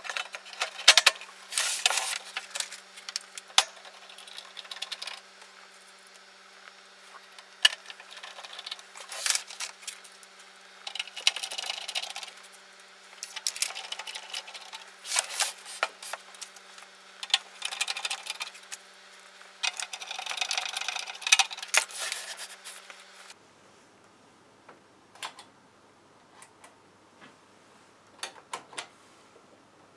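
Handling noise from refitting a stereo amplifier's sheet-metal top cover and working at its rear panel: many clicks, metallic rattles and scrapes, with a faint steady hum underneath. The handling stops about 23 s in, leaving only a few soft clicks.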